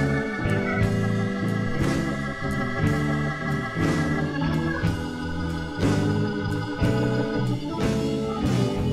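Slow twelve-bar blues backing track in E at 60 bpm. Sustained keyboard chords over a bass line, with drum hits about once a second, hold the A chord (the IV) and move back to E near the end.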